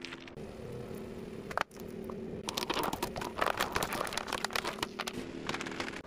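A car tyre rolling slowly over thin plastic cups, cracking them: a dense run of plastic cracks and crackles starting about two and a half seconds in, over the car engine's steady low hum.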